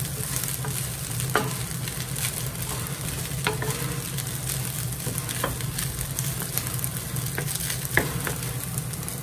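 Fried rice sizzling in a nonstick frying pan as it is stirred and turned with a wooden spatula. The spatula knocks against the pan four times, the last one near the end the loudest.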